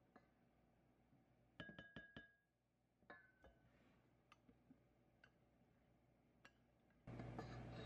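Faint ringing clinks of a metal whisk and spatula against a glass mixing bowl while whipped egg whites are folded into batter. A quick run of clinks comes about a second and a half in and two more about three seconds in, then a few light ticks.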